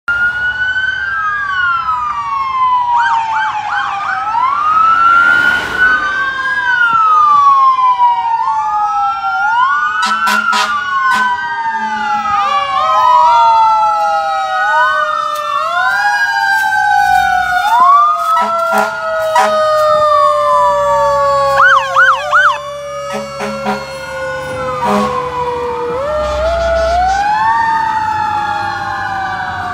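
Several police and fire vehicle sirens sounding at once, their wailing pitch sweeps rising and falling and overlapping, with short bursts of a faster warble about 3 seconds in and again around 22 seconds in.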